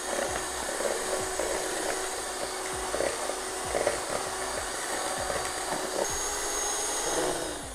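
Electric mixer beating egg yolks with sugar into a pale cream, its motor running steadily with light ticks, then winding down and stopping near the end.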